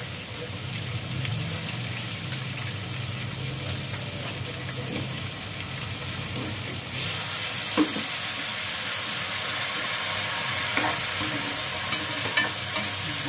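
Meat, onions and spices frying in oil in an aluminium pot on a gas stove, a steady sizzle that grows louder about seven seconds in, with a few light clinks of a utensil against the pot.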